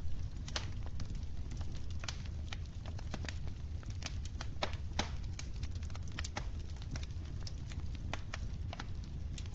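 Wood fire crackling in a fireplace: irregular sharp snaps and pops, several close together about four to five seconds in, over a steady low rumble.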